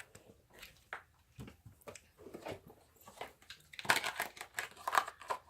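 Butter slime being pulled apart into pieces by hand: irregular small sticky clicks and crackles, with a louder flurry about four seconds in.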